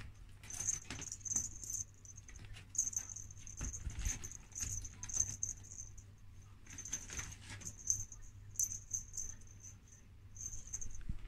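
Two kittens playing at a pop-up fabric play tent, scuffling and batting at dangling pom-pom toys, with a thin high jingle that comes and goes.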